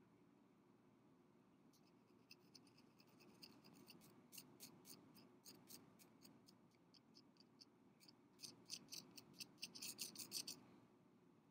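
A thin metal rod lightly tapping and scratching against a glass candle jar: a run of small, sharp clicks that starts about two seconds in, grows quicker and louder near the end, then stops.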